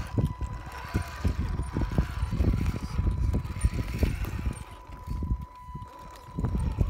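Scale RC crawler (RC4WD Trail Finder 2) climbing over slate: a steady thin whine from its electric drive, with its tyres and chassis knocking and clattering on the stone. Wind rumbles on the microphone, and everything eases briefly about five seconds in.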